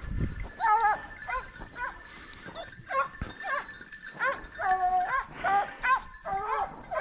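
Several hunting dogs yelping repeatedly, short high cries two or three a second, with some longer held ones and two voices overlapping near the end: hounds giving tongue as they run game.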